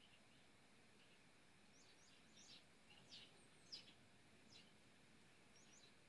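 Faint calls of common starlings: a string of short, high chirps that slide down in pitch, starting about two seconds in, with a couple more near the end.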